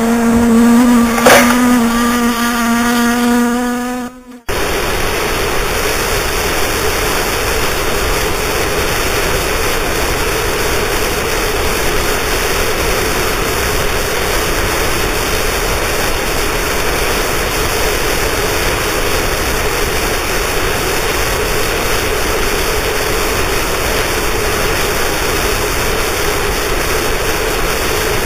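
Harsh noise music. A loud buzzing drone on one steady low pitch, broken by two sharp clicks, cuts off abruptly about four seconds in. A dense, unbroken wall of static hiss then takes over and holds.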